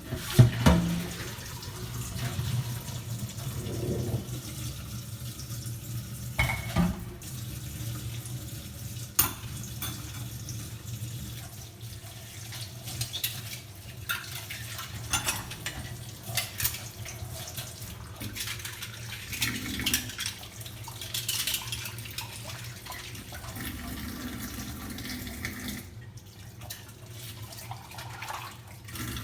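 A tap running into a sink while dishes and glasses are washed, with scattered clinks and knocks of crockery. The running water cuts off a few seconds before the end.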